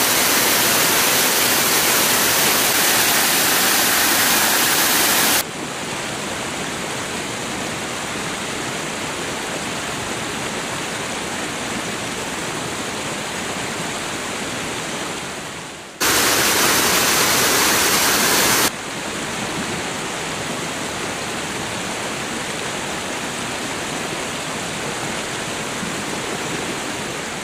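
Waterfall pouring, a steady rush of falling water. It is louder and hissier for the first five seconds and again for about three seconds from 16 s, jumping up and down abruptly between shots.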